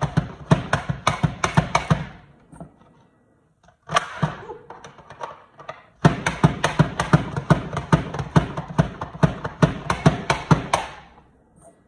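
Rapid Prep Mandolin plunger pumped down over and over, slicing peeled potatoes: a fast, even run of knocks, about five a second. It breaks off for a few seconds and starts again about halfway through.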